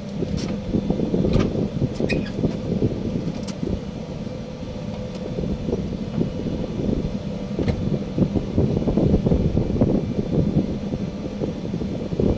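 Wind buffeting the microphone on a ship's open deck, a low gusting rumble, with a few faint ticks in the first few seconds.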